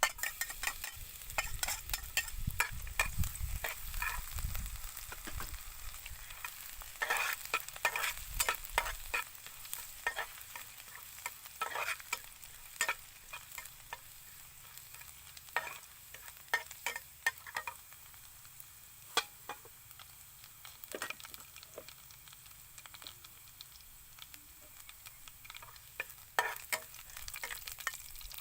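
Beef sizzling as it fries in a pan, with a utensil scraping and clicking against the pan as it is stirred. The clicks come thick in the first half and thin out later.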